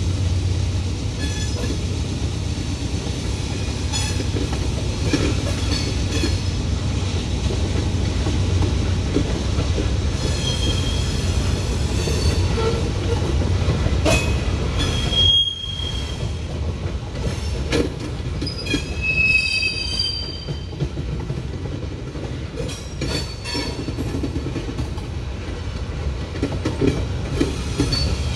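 Freight train cars rolling past with a steady rumble, wheels squealing in short high tones that come and go, and irregular clicks and clanks from the wheels over rail joints.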